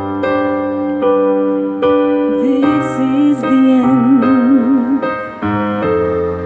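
Music: sustained piano chords changing about once a second, joined about two seconds in by a melody line with a wide vibrato. No firework bangs are heard.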